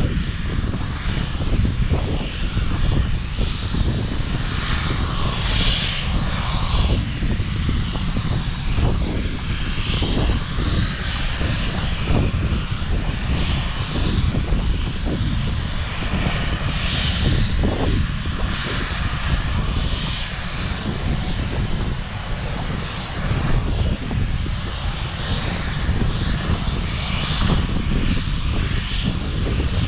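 Sikorsky S-61 helicopter's twin turboshaft engines running during shutdown after a test flight: a steady, distant turbine roar with a thin high whine and an uneven low rumble.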